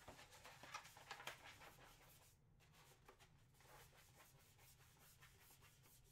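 Near silence: room tone with a faint low hum, with light scratchy rubbing sounds in about the first second and a half.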